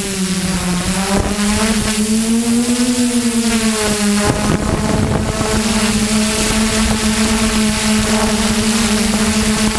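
DJI F450 quadcopter's four electric motors and propellers whining, heard from the camera on the drone; the pitch dips and swells with throttle changes, a brief rush of air noise comes about four and a half seconds in, then the whine holds steady as it descends to land.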